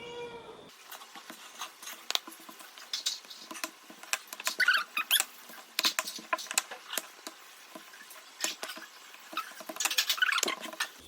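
Hands pressing and handling soft, risen naan dough: a run of light taps and clicks with brief sticky squeaks.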